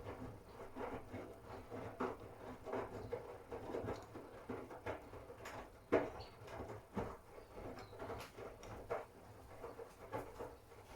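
Miele W1 front-loading washing machine tumbling a wash load: the motor hums steadily while laundry and water slosh and thud irregularly in the drum, during the wash phase of a cotton 60°C programme. One louder thump about six seconds in.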